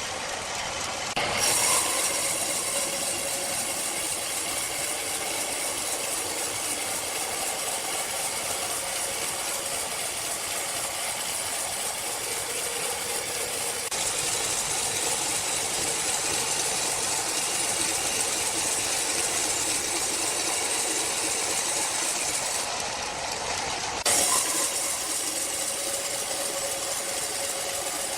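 Sawmill machinery running: a steady mechanical noise with a faint hum, jumping suddenly louder about a second in and again near the end.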